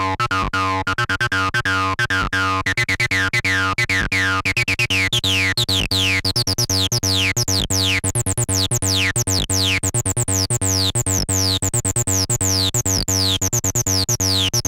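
Behringer TD-3 analog bass line synthesizer, a TB-303 clone, playing a fast sequenced 16-step acid bassline with slides on some steps. From about five seconds in the notes turn brighter and more resonant, each ending in a quick falling sweep.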